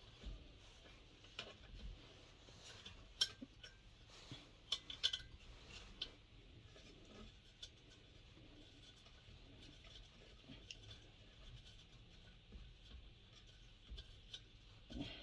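Scattered light metallic clicks and clinks of hand tools and small metal parts as bolts are undone and handled on a diesel heater being taken apart. They come thickest in the first six seconds, with a few fainter taps after.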